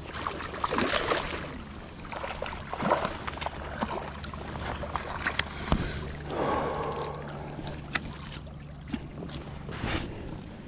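Sounds of handling on a fishing kayak on the water: irregular knocks and clicks against the hull and gear, short splashy bursts of water, and a steady low hum underneath.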